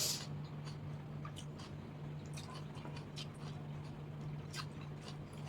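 A person chewing a mouthful of soaked rice mixed with chanachur and fried potato, with scattered small clicks and a sharper one right at the start and another about four and a half seconds in. A steady low hum runs underneath.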